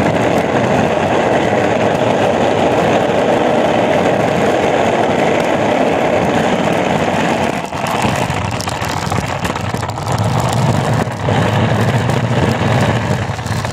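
Skateboard wheels rolling over pavement, picked up up close as a loud, steady rumble. It dips briefly about eight seconds in and runs deeper after that.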